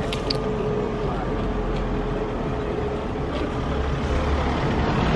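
A vehicle engine running steadily in street noise, with a hum and a low rumble, and a few short clicks right at the start.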